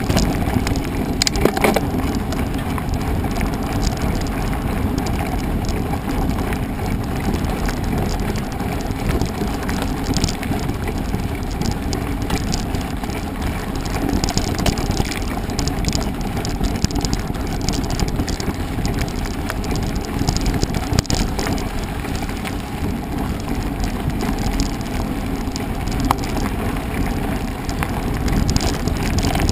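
A mountain bike ridden fast over rough off-road ground: a steady rush of tyre and rolling noise, with scattered rattles and knocks from the bike.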